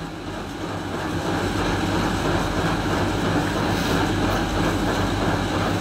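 Steady rumbling background noise with no speech, building a little over the first second and then holding even.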